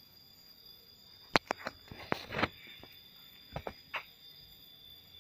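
Steady high-pitched insect calls, with a scatter of sharp clicks and knocks: a cluster from about one and a half to two and a half seconds in and a few more near four seconds.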